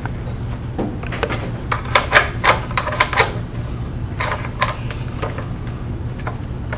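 A quick, irregular run of sharp clicks and clacks, densest in the middle, over a steady low hum.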